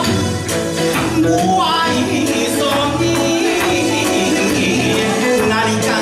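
Kawachi ondo folk song performed live: a singing voice with wavering, sliding pitch over steady strokes of a large taiko drum played with sticks.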